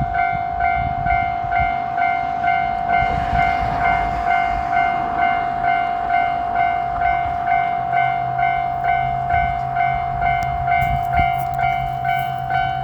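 Japanese railroad crossing warning bell ringing its repeated electronic 'kan-kan', about two strikes a second, over a low steady hum.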